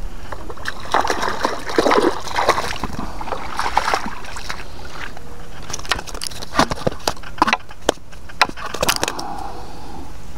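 Splashing and sloshing of a hooked fish being pulled in through the shallows on a handline, then a string of sharp slaps and taps as the fish is handled and flaps on the wet mud.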